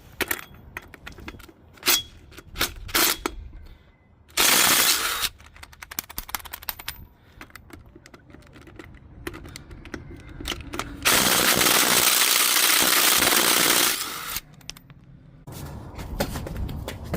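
Impact wrench hammering in two bursts: a short one about four seconds in and a longer one of about three seconds near the end. Between them come scattered sharp metallic clicks and clinks of wheel hardware and tools being handled.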